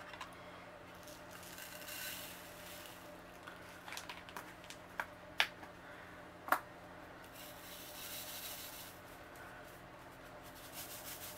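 Small round resin diamond-painting drills poured into a plastic tray and shaken about in it, a soft rattling hiss. A few sharp clicks come about five to six and a half seconds in.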